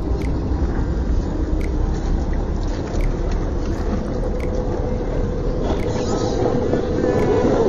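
The electric motor and gear drive of an HB ZP1005 Defender RC scale crawler running as it climbs over wet rock, over a constant low rumble. A steady whine sets in about six seconds in.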